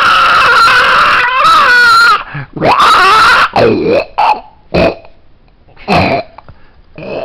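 Domestic cat growling and yowling at a frog hand puppet pushed in its face: one long, loud, wavering yowl, then a string of shorter rising-and-falling yowls that grow fainter, the sound of an annoyed, defensive cat.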